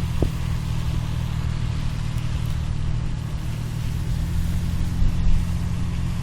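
Engine running steadily at an even pitch, with a constant rushing noise over it.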